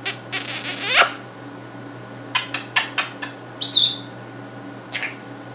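African grey parrot vocalizing: a harsh, noisy squawk in the first second, then a quick run of sharp clicks about two and a half seconds in, and a short high whistle near four seconds.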